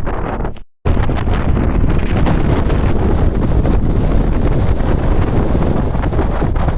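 Strong blizzard wind buffeting the microphone, a loud, steady rumbling rush. It breaks off for an instant just under a second in and resumes at the same strength.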